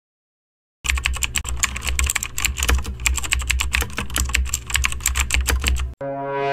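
Fast, continuous typing on a computer keyboard, a dense run of key clicks that starts about a second in and cuts off suddenly near the end, where a held musical tone begins.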